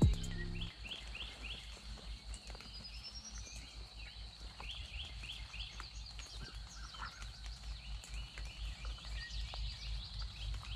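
Wild songbirds singing in woodland: runs of short, quick repeated chirps and a rising whistled note, over a steady faint high tone. A low uneven rumble runs underneath.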